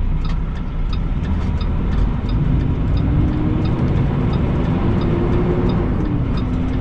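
International semi truck's diesel engine running steadily, its pitch rising a little partway through as the truck moves off, with a steady ticking of about three a second over it.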